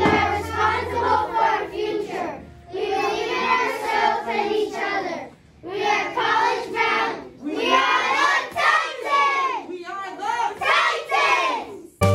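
A class of children chanting a school creed in unison, in about five phrases with short pauses between them.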